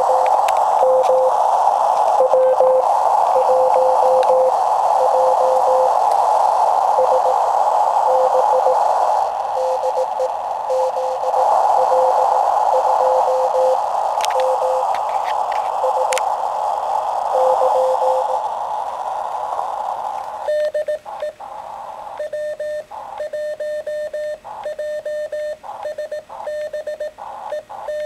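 Shortwave receiver hiss, filtered to a narrow band, with a weak Morse code (CW) signal keyed faintly through it: a distant station heard at low strength. About 20 seconds in, the hiss drops out and a louder, clean Morse sidetone takes over, the operator's own transmission being keyed.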